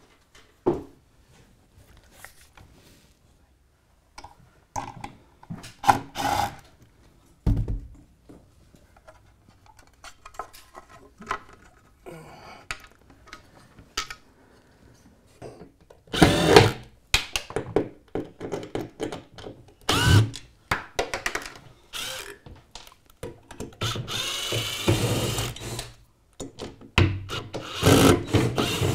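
Knocks and clatter of items being handled, then a cordless Makita driver running in short bursts near the end, its motor pitch rising and falling, as it backs screws out of a wall-mounted shelf bracket.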